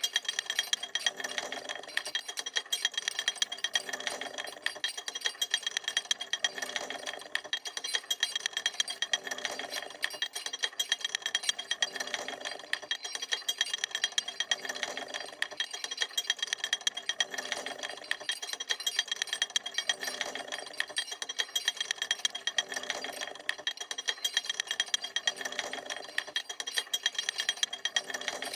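Chain hoist and pulley lifting a heavy load: a continuous rattle and clicking of chain links running over the pulley. It swells in an even rhythm about every second and a half.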